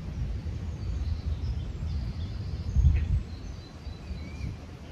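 Outdoor ambience: a steady low rumble that swells briefly about three seconds in, with faint, scattered bird chirps over it.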